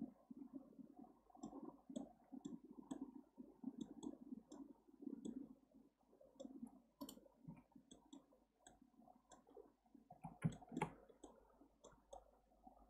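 Faint, irregular clicks of a computer mouse being handled, with a soft rustle under them and one louder knock about ten and a half seconds in.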